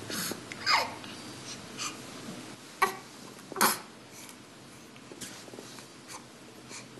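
Newborn baby's small grunts, snorts and squeaky breaths, a few short separate noises, the loudest under a second in and about three and a half seconds in.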